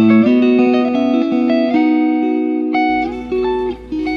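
Background music led by guitar, with plucked notes changing every fraction of a second.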